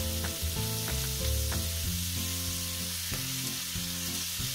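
Pancetta and freshly added mixed wild mushrooms sizzling in hot olive oil in a frying pan, a steady frying hiss. Soft background music with sustained notes plays underneath.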